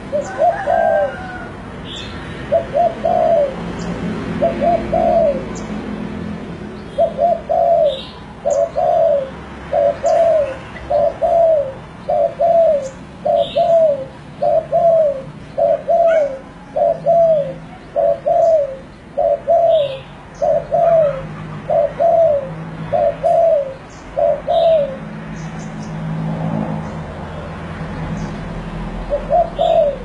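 Spotted dove cooing: a long run of short, hoarse coo notes repeated about once a second. The run pauses for a few seconds near the end and then starts again.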